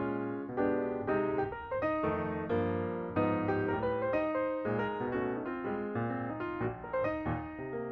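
Background music: piano or electric-piano notes played in a steady flowing pattern.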